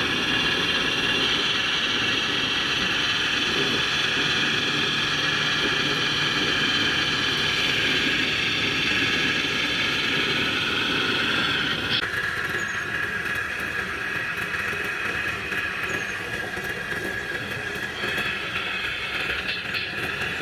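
Radio-controlled model construction machines running, their electric motors and drives giving a steady high whine over a low rumble; the whine changes and the sound drops slightly about twelve seconds in.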